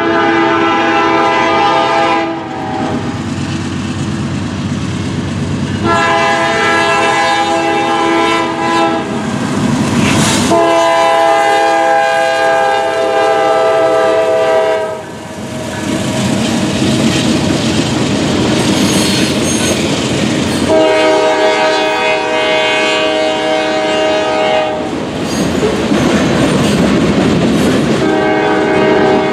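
GE C44-9W diesel locomotive's multi-note horn sounding about five long blasts at a grade crossing. Under and between the blasts comes the rumble of the locomotive and freight cars rolling past with clickety-clack over the rail joints.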